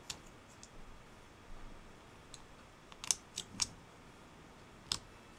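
Faint sharp clicks of a 5/8-inch plastic side-release buckle being handled and fastened around a wrist: a quick cluster of three clicks about three seconds in, then a sharper single click near the end.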